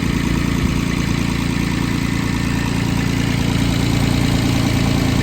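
Small Isuzu diesel engine of a 2005 John Deere 17ZTS mini excavator idling steadily and evenly, sounding healthy.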